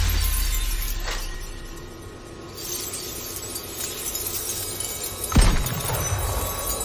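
Film action sound effects of glass shattering, with shards tinkling, a sharp crack about a second in and a loud bang about five and a half seconds in.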